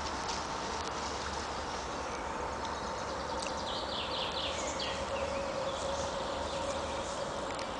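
Steady wash of a shallow forest stream as a small dog wades through it, with a short run of quick high chirps around the middle.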